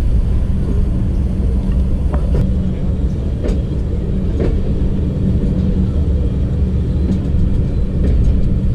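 Passenger train running on the rails, heard from an open coach window: a steady low rumble of the wheels and running gear under a constant hum, with scattered short clicks.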